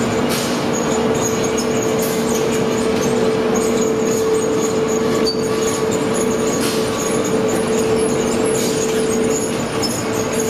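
Clay-preparation machinery in a brick plant running: a belt-driven roller crusher, electric motors and conveyors making a loud, steady mechanical din with a constant hum and occasional clanks.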